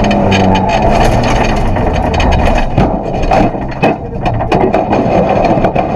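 Rally car engine running hard, heard from inside the cabin, with many sharp knocks and rattles through the car as it runs over a rough, wet road.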